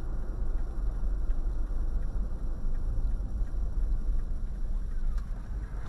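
Steady low rumble of a car driving, engine and tyre noise heard from inside the cabin by a dashcam.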